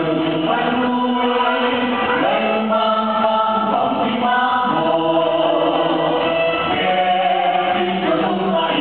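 A mixed group of men and women singing together into microphones, as a choir, in long held notes.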